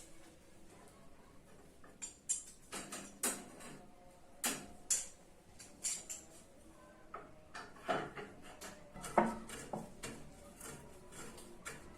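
Irregular light metal clicks and clinks of tool parts being handled and fitted, starting about two seconds in, with the sharpest knock a little past the middle.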